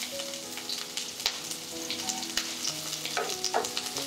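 Sliced onions sizzling in a little hot oil in a steel kadai, with a spatula occasionally clicking and scraping against the pan as they are stirred.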